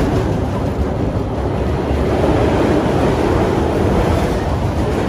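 Mine-train roller coaster running at speed: a steady rush of wind on the microphone over the rumble of the train on its track.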